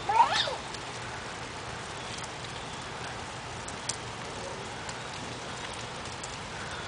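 Steady rain falling, an even hiss with a few faint drips or taps. A brief high voice glides up and down right at the start.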